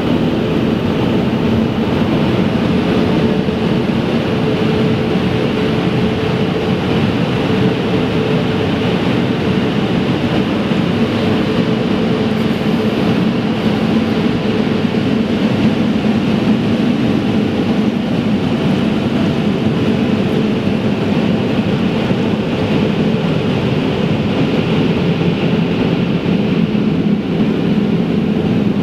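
Automatic gantry car wash machinery running with a steady drone, heard from inside the car through the closed windows.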